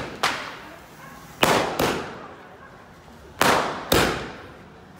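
Firecrackers going off: five sharp bangs at uneven intervals, in two pairs and a single, each trailing off over about half a second.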